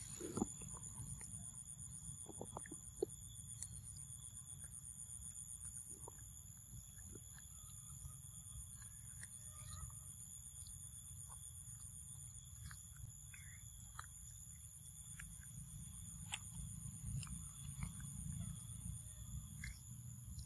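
Insects chirring steadily in high, thin, pulsing tones over a low rumble, with small scattered clicks of a young macaque biting and chewing ripe mango.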